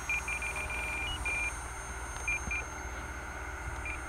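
Radio-control transmitter beeping as its trim buttons are pressed in flight: quick runs of short, high beeps with one slightly higher beep about a second in, a couple more beeps midway, and a new run near the end.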